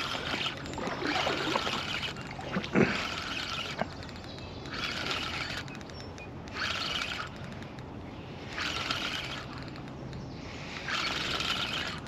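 A spinning reel whirring in short bursts, roughly every two seconds, as a hooked carp is played on a bent rod. There is a louder knock about three seconds in.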